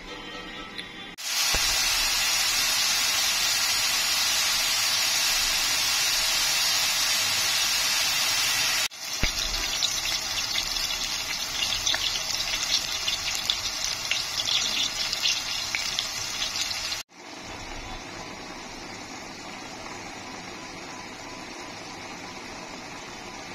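Cooking sounds in three cuts: a loud steady rushing hiss, then chopped onion, tomato and spices sizzling in oil in a pot with sharp crackles, then a quieter steady hiss as a tomato sauce cooks.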